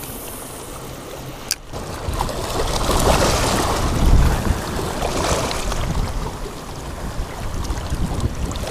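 Wind buffeting the microphone, with small waves lapping against a rocky, muddy shore: a steady rushing that swells and rumbles a few times.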